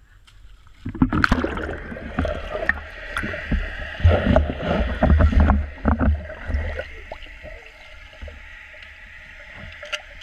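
Swimming-pool water splashing and sloshing around a GoPro camera as it is dipped in and out of the water, with a deep rumble and knocks from the water moving against the housing. The splashing is busiest from about a second in until about six seconds, then settles into quieter, muffled water noise.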